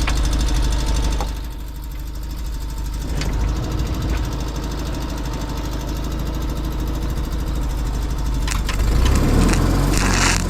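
An engine running steadily at idle, with a few sharp clicks or knocks and a brief burst of hiss near the end.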